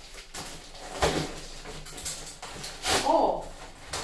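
Brown paper packaging rustling and tearing as it is cut with a knife and pulled open by hand, in a few noisy bursts, the loudest about a second in and just before three seconds.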